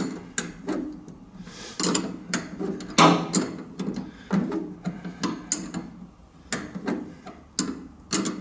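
A metal spanner is being worked on a nut in short turns. The spanner is lifted off and refitted for each stroke, giving repeated irregular clicks and clinks, about two or three a second.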